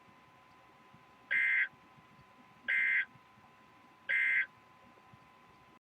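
Emergency Alert System End of Message signal: three short bursts of SAME digital data tones, each about a third of a second long and about a second and a half apart, marking the end of the alert broadcast.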